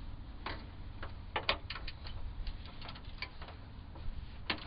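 Irregular light metallic clicks from a 10 mm socket and extension being fitted onto a bolt and handled, a few clicks close together about a second and a half in and a last one near the end.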